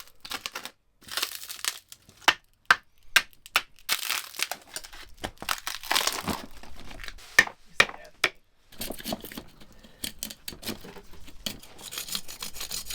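Cardboard being torn and peeled off a cured fiberglass-and-epoxy casting, with its plastic lining crinkling: an irregular run of rips, cracks and crinkles.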